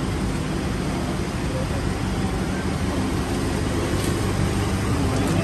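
Van engine idling, a steady low hum.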